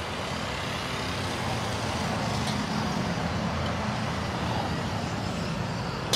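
Steady roadside traffic noise, with vehicle engines running. There is a single sharp click near the end.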